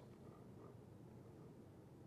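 Near silence: room tone in a pause between spoken sentences.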